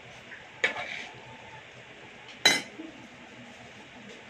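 A metal spoon clinking against a frying pan twice: a short clink soon after the start, then a louder one past the middle, each with a brief ring.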